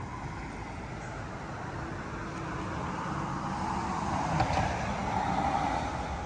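Traffic noise: a vehicle passing on a road, its sound swelling over a few seconds and easing off near the end.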